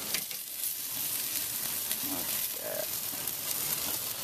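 Sauce-basted chicken drumsticks sizzling on the grate over hot lump charcoal in a kamado grill, a steady hiss with fine crackles.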